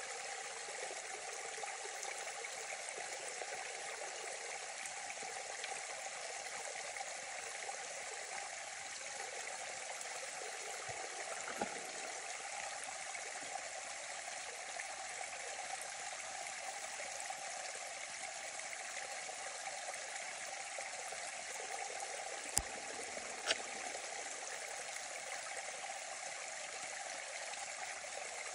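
Small muddy woodland stream running and splashing down a narrow gully over little drops: a steady rush of water. Two sharp clicks come close together about three-quarters of the way through.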